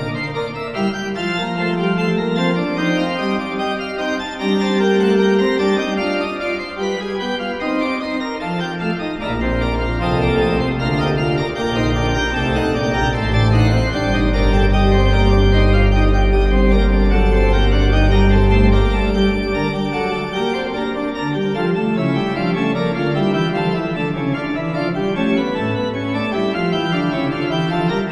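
Background music of slow, sustained organ chords, with deep bass notes held from about nine seconds in until about twenty seconds in.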